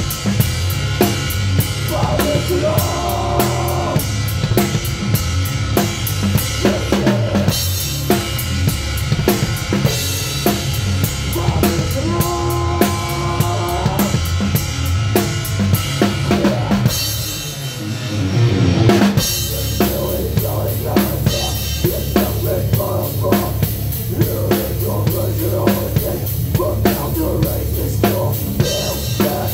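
A live heavy-metal band heard from right beside the drum kit, the drums loudest: fast, driving kick-drum and snare hits under the rest of the band. About two-thirds of the way through, the drumming drops out for a couple of seconds, then the full band comes back in.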